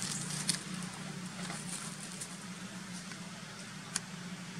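A steady low hum under a faint hiss, with a few short crackles of dry leaves as a monkey moves over the leaf litter: the sharpest about half a second in and another near the end.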